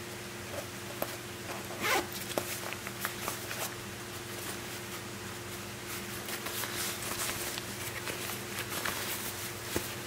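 Zipper on a Pacsafe Slingsafe LX500 backpack being worked: a short zip about two seconds in, a few clicks, then a longer stretch of zipping in the second half. A steady low hum runs underneath.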